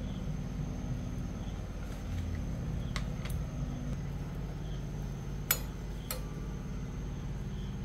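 A few light clinks of a steel spoon against a steel saucepan of boiling water, the loudest about five and a half seconds in, over a steady low hum.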